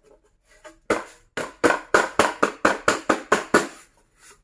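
A rapid run of about a dozen sharp knocks, roughly five a second, as the opened cold spark machine's metal housing is shaken and knocked about to dislodge the spark powder that was clogging its feed mechanism.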